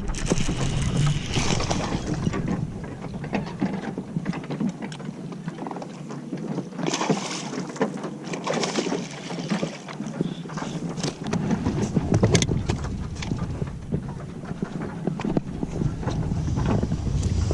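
Wind buffeting the microphone and water against a fishing boat's hull, with scattered small clicks and knocks. A deeper rumble of wind and water starts about two-thirds of the way through.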